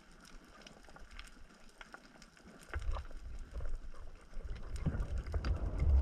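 Underwater ambience on a reef heard through the camera: faint scattered crackling clicks, then from about three seconds in a low rumbling water noise that grows louder near the end.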